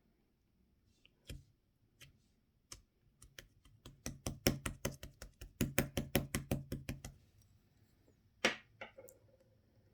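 Mint-chocolate slime being pressed and squeezed by hand, making sharp clicking pops. A few pops come singly at first, then a quick run of them at about four or five a second, and one more loud pop near the end.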